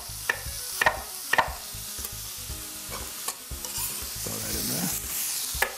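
Chef's knife striking a cutting board in a few sharp, uneven clicks as a red onion is sliced into strips, one of the loudest near the end. Sausage and bell pepper sizzle steadily in a skillet under it.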